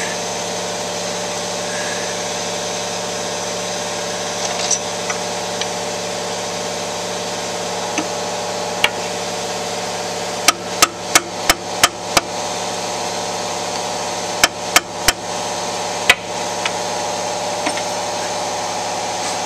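Sharp metal taps as a tool knocks a ringed piston down into the cylinder bore of a 1939 Farmall F-20 engine, working the piston rings past the bore's edge. A run of six taps at about three a second comes about ten seconds in, then three more and a last single tap, over a steady hum.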